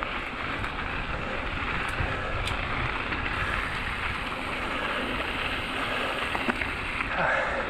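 Mountain bike rolling fast down a dry gravel trail: a steady rush of tyres on gravel mixed with wind on the helmet or chest-mounted action camera's microphone, with a few small clicks.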